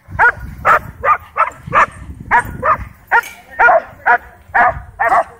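Dogs barking rapidly and over and over, about two barks a second, excited by a drone hovering overhead.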